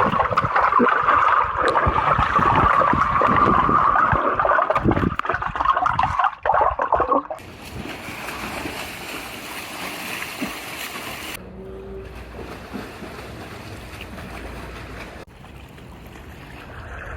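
Water splashing and gurgling close to the microphone, loud and choppy for about the first seven seconds, then quieter and steadier after abrupt changes about seven and eleven seconds in.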